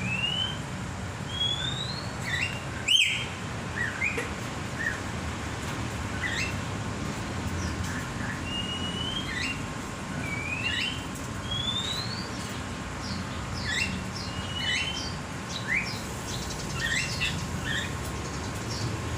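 Caged birds calling with many short rising whistles and chirps, with a sharp click about three seconds in.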